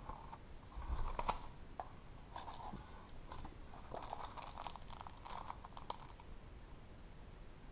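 Paper and packaging rustling and crinkling as items are handled and taken out of a box, with scattered small clicks and taps.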